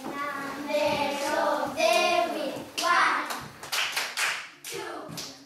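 Children's voices singing for the first few seconds, then hand clapping from about three seconds in.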